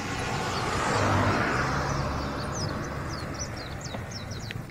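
A car passes, its engine and tyre noise swelling to a peak about a second in and then fading. In the second half a bird chirps in a quick run of short, falling notes.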